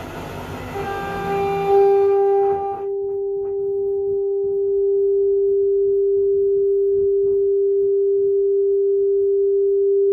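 A steady pure tone of middling pitch plays through the Marantz 2500 receiver under test. It comes in about a second in over a rushing hiss, and the hiss drops away at about three seconds, leaving the clean tone on its own.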